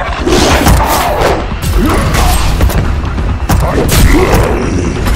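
Film-style fight sound effects: a series of heavy impacts and booms, several in quick succession, over background music.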